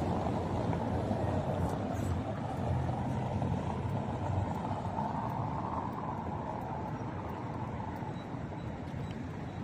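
Steady hum of city street traffic, cars driving past, slowly growing a little quieter.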